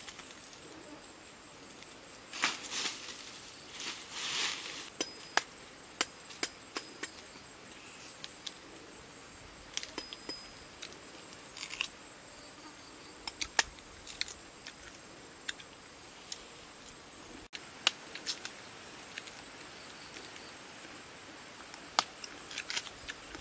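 Insects droning steadily at a high pitch, with scattered sharp clicks and two brief rustles a few seconds in as mango branches and fruit are handled.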